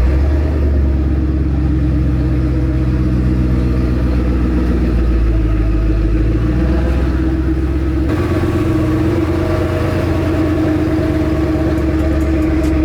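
Twin-turbo Ford Mustang Boss 302's V8 engine running steadily at a constant pitch.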